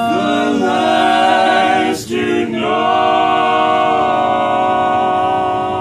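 Male barbershop quartet singing a cappella in close four-part harmony, holding long chords; about two seconds in the chord breaks briefly on a sharp consonant before the next held chord.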